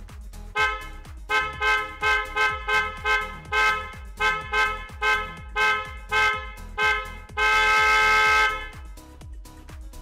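A pair of TST Hella-type electric snail horns for motorcycles sounding together, shrill, several notes at once. A quick run of about fourteen short honks is followed near the end by one long blast lasting about a second.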